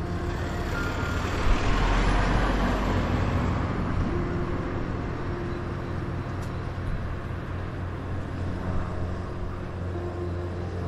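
Street traffic: a motorcycle passes close by, its engine noise swelling to a peak about two seconds in and then fading, over a steady low hum of engines.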